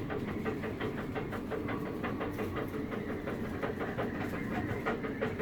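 Strong wind outside the boat, heard from inside the cabin as a steady rushing noise with a fast, even rattling running through it.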